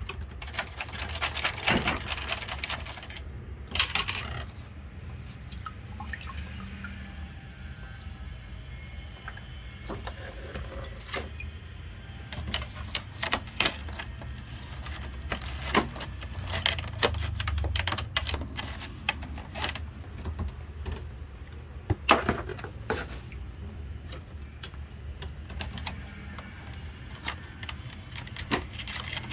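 Irregular clicks, taps and knocks of tools and parts being handled during air-conditioner repair, over a steady low hum. The hum swells briefly a little past the middle.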